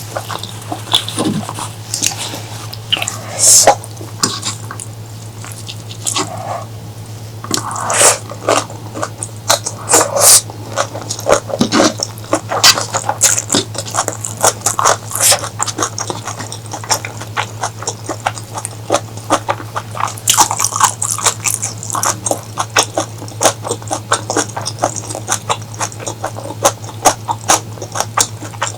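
Close-miked wet chewing and mouth smacks while eating cuttlefish in curry, many irregular clicks with no rhythm. A steady low hum runs underneath.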